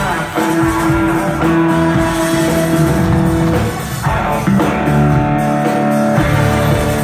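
Live pop-rock band playing an instrumental passage with no singing, electric guitar to the fore over drums, bass and long held keyboard chords.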